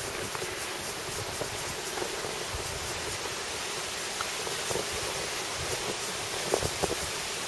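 Steady rushing hiss of wind across the microphone, with a few brief soft knocks near the end.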